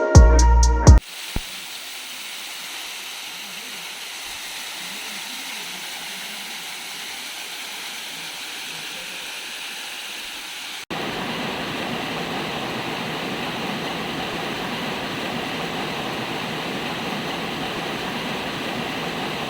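Waterfall rushing steadily. Partway through there is a cut to a louder, fuller rush of falling water.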